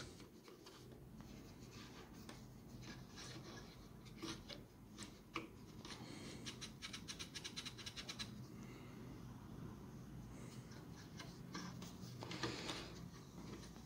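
Faint scratching and rubbing of a cotton wad wiped over a TV's HDMI socket and main-board contacts, with a run of quick scratches about halfway through.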